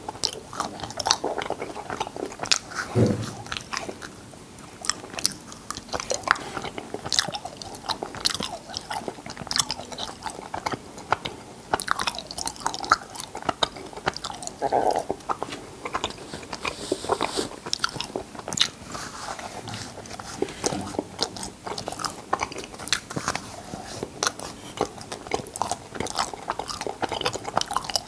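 Close-miked mouth sounds of a person eating cotton candy: dense, irregular wet clicks and lip smacks as the floss is chewed and dissolves in the mouth.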